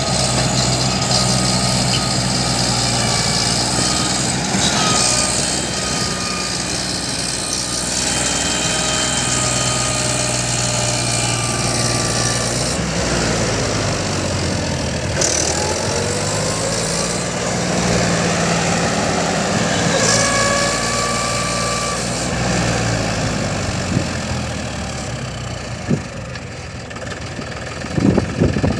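Diesel engines of a JCB 3DX backhoe loader and a tractor running while loading, the pitch rising and falling a few times as the machine works. There are sharp knocks near the end.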